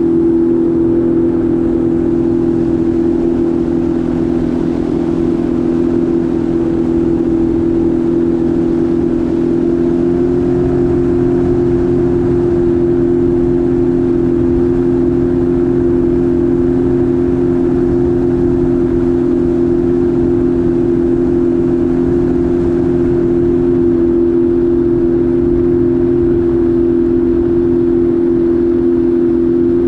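Jet ski engine running at a steady cruising speed, a loud even drone over a rushing noise, its pitch stepping up slightly about ten seconds in.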